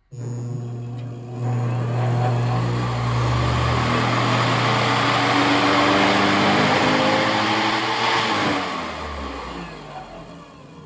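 A treadmill DC motor with a disc on its shaft starts up, comes up to speed and runs with a steady hum and whine. About eight seconds in it is electrically braked through a 2-ohm, 200-watt braking-resistor bank, and its pitch falls as it slows down.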